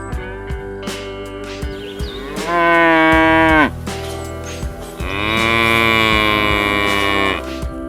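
A cow mooing twice over strummed guitar music. The first moo is shorter and drops in pitch as it ends. The second, longer moo starts about a second later and holds steady before cutting off.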